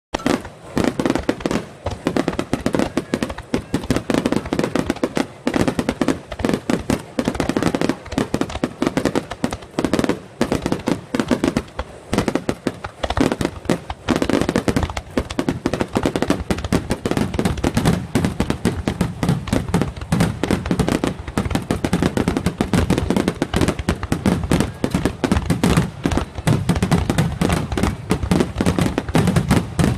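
Fireworks display: a dense, unbroken barrage of bangs and crackles, many a second, with deeper booms growing heavier in the second half.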